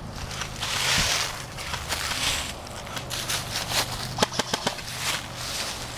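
Footsteps crunching and rustling through dry leaves and brush, with scattered sharp clicks and a quick run of four or five clicks about four seconds in.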